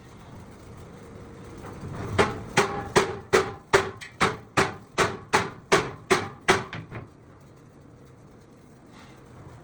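Hammer blows on metal: about a dozen strikes in a steady rhythm of roughly two and a half a second, each ringing briefly at the same pitch, starting about two seconds in and stopping about seven seconds in.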